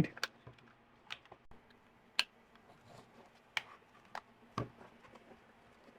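Scattered small clicks and taps of plastic as a replacement ear pad is pressed and fitted onto the right ear cup of a Sony PlayStation Pulse 3D wireless headset.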